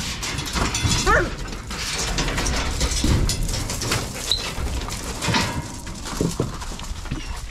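A dog-like canine whining, with a short wavering whine about a second in, over a steady noisy background.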